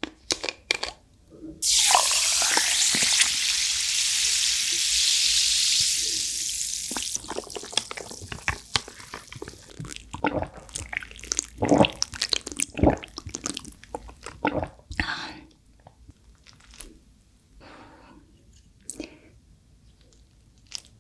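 A drink is poured from a bottle over ice into a glass mug, with a steady hiss lasting about five seconds. Then ice cubes clink and tick against the glass as the drink is stirred with a muddler, the clinking thinning out near the end.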